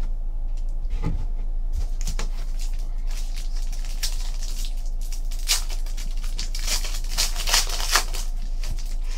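Foil trading card pack wrapper crinkling and tearing as it is ripped open and the cards are slid out, in irregular rustling bursts that grow busier in the second half. A steady low electrical hum runs underneath.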